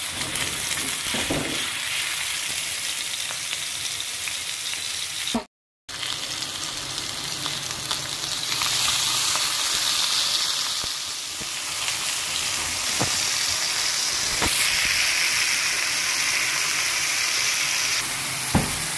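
Chapli kebab patties of minced meat sizzling steadily as they fry in ghee on a flat tawa griddle, with a few sharp knocks in the later part. The sound drops out briefly about five and a half seconds in.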